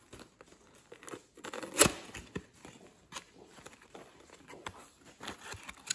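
Cardboard baseball card box being handled and its flaps opened: soft rustling and scraping with a few sharp clicks, the loudest about two seconds in.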